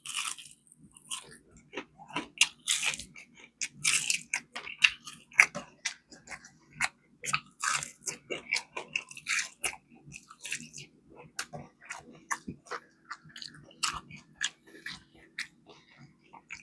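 A person chewing and biting into crispy fried chicken wings close to the microphone: many short, irregular crunches and mouth clicks, with a faint steady hum underneath.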